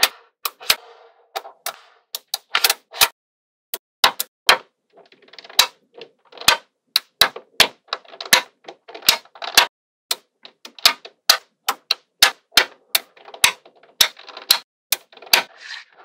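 Small metal magnetic balls (neodymium magnet spheres) clicking and clacking as rows and strips snap onto a panel of balls, in irregular sharp clicks, some in quick clusters with short rattles.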